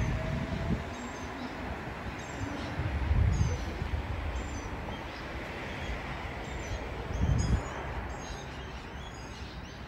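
Birds chirping over the fading running noise of a Sydney Oscar H-set electric train pulling away from the platform, with two brief low rumbles about three and seven seconds in.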